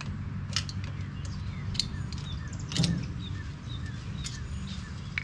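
Scattered metallic clicks and clinks as the front wheel bearing is worked out of a Ford F350 rear wheel hub, the loudest near the middle. A bird repeats short falling chirps, about three a second, through the second half.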